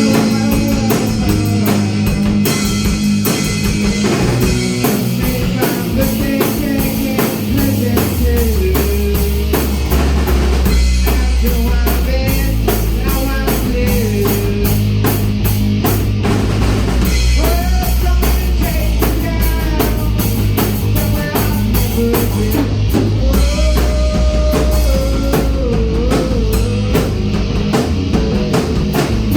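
Rock music with a drum kit, bass and guitar, played loud and steady; the bass grows heavier about eight seconds in.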